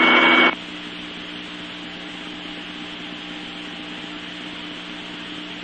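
FDNY Manhattan dispatch radio channel between transmissions: a short loud burst of static cuts off suddenly about half a second in as the last transmission drops. A steady hiss with a low hum follows on the open channel.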